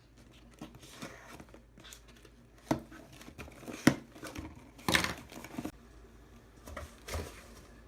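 A package being torn open by hand: irregular crinkling and tearing of its wrapping in short bursts, the longest tear about five seconds in.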